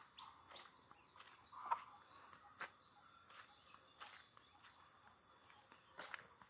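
Quiet rural ambience: a handful of soft footsteps or crunches on a dirt path, with small birds chirping in short rising notes between them. The sharpest step or crunch comes a little under two seconds in.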